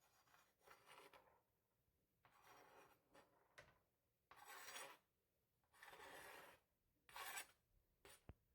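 Faint rasping, scraping strokes of an onion being prepared by hand, about eight separate strokes each under a second long, with a sharp tap near the end.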